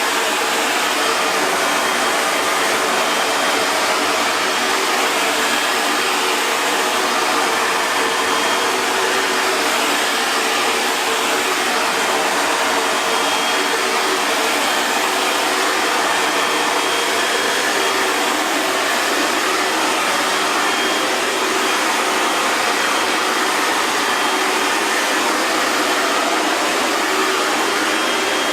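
Hair dryer running steadily: a constant, even rush of air with a low motor hum beneath it and no change in speed.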